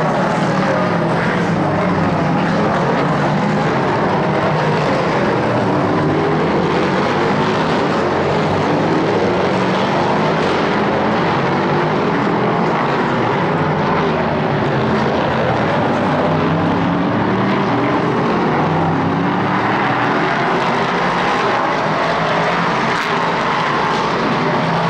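Engines of several LMP3 prototype race cars running at racing speed on the circuit, their pitch rising and falling over and over as the cars accelerate, shift and pass.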